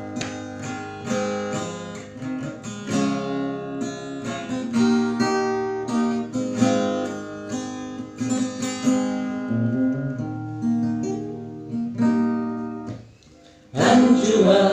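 Acoustic guitar playing a plucked, strummed instrumental introduction, the notes changing several times a second. Near the end a singing voice comes in over it.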